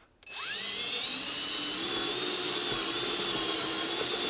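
Power drill with a step bit cutting a 3/8-inch hole through the steel trunk floor of an E36 BMW. It spins up a moment in with a rising whine, then runs steadily.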